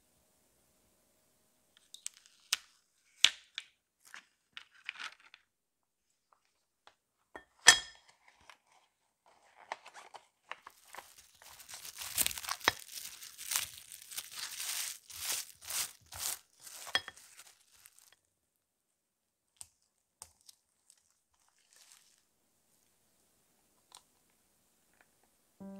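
Plastic cling film crinkling and rustling for several seconds, starting about ten seconds in, as it is pulled and wrapped around a metal cake ring. Before it come a few light clicks and one sharp knock.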